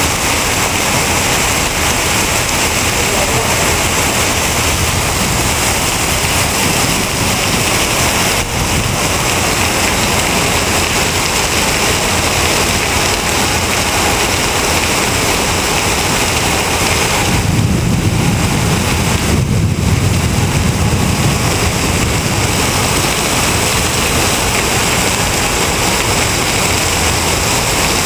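Heavy rainwater pouring off part of the airport building like a waterfall: a loud, steady rush of falling water, with a deeper rumble swelling for a few seconds about two-thirds of the way through.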